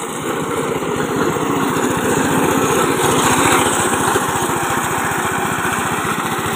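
Small petrol engine of a push cylinder (reel) lawn mower running steadily as it is pushed over grass, its rotating reel blades cutting and throwing clippings into the front catcher. It grows louder over the first few seconds as it comes close.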